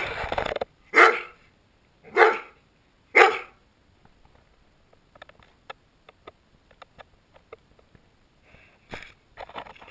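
A dog barks four times, about a second apart. Then, for several seconds, a dog sniffs right at the camera with light ticks and clicks, and a few louder snuffles come near the end.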